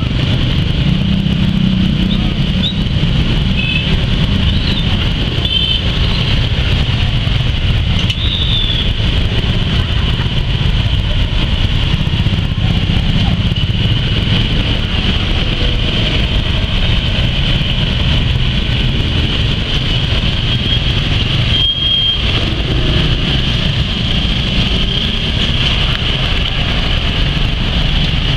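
Former JR 205 series electric commuter train running by in heavy rain: a steady low rumble mixed with steady rain noise.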